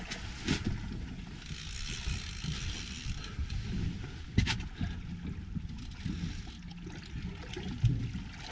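Wind buffeting the microphone and water moving against a boat's hull, with one sharp knock about four and a half seconds in.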